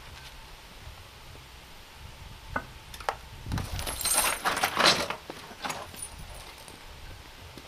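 Broken glass from a smashed CRT tube clinking and rattling as the monitor's plastic casing is lifted and tipped, a scatter of small clinks a few seconds in after a single click.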